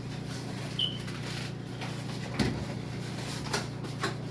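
A few scattered knocks and clicks of kitchen things being handled over a steady low hum, with a brief high-pitched tone about a second in.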